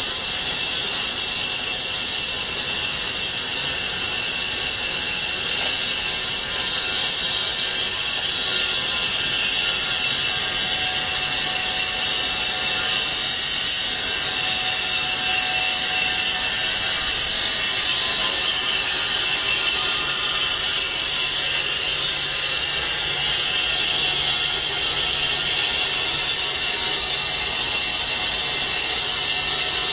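Vertical band-knife foam cutting machine running with its blade band turning while it cuts foam sheets: a loud, steady mechanical noise with a strong high hiss.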